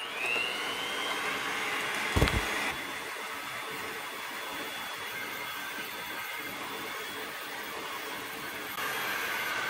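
Electric heat gun switched on: its fan motor spins up with a rising whine, then blows steadily while heating a rubber PCV hose to soften it. A single knock about two seconds in.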